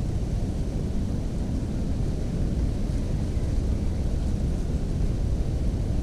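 Wind buffeting the camera's microphone: a steady low rumble with no bird song above it.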